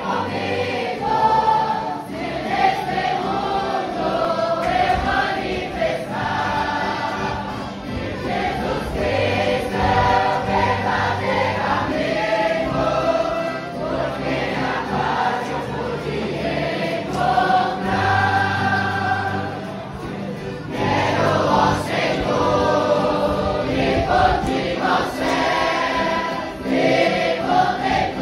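A youth choir singing a hymn together in sustained phrases, accompanied by brass instruments including a tuba.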